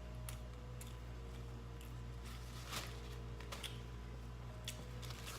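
Soft eating sounds: a few scattered wet clicks and smacks of chewing and food handling over a low steady hum.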